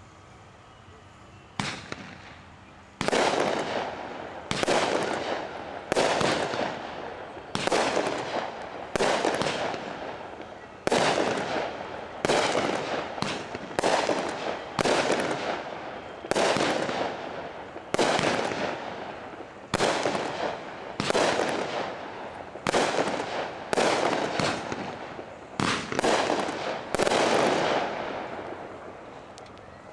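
A consumer multi-shot aerial firework fires about twenty shots, roughly one a second. Each is a sharp bang that dies away over about a second.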